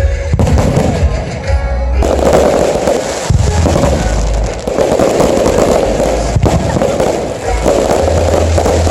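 Aerial fireworks going off in a dense, continuous barrage: deep booms over a steady crackle of sharp bangs, with music playing alongside.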